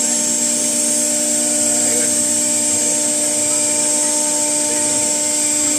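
Four-axis CNC router running steadily as it engraves, a constant whine made of several steady tones.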